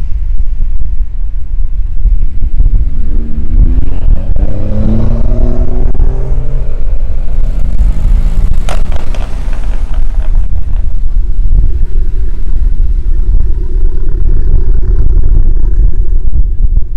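Lowered cars rolling slowly past one after another, engines running at low revs. The engine note rises and falls in the first half, and a steady engine hum comes in near the end, over heavy low wind rumble on the microphone. One sharp clack about halfway through.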